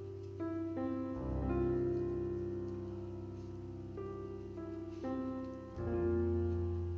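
Background piano music: slow notes struck a few at a time over held bass notes.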